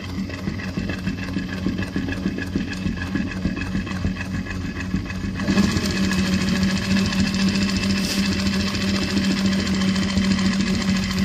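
Richpeace GOA-8-BZ long-arm industrial sewing machine stitching through quilted fabric, its needle running in a rapid, steady rhythm over a constant motor hum. The sound grows louder and brighter about halfway through.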